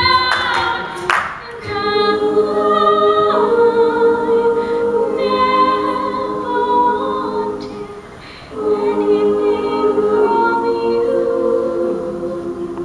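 Women's a cappella group singing sustained chords in several parts behind a female solo voice. The singing dips briefly about eight seconds in, then comes back in full.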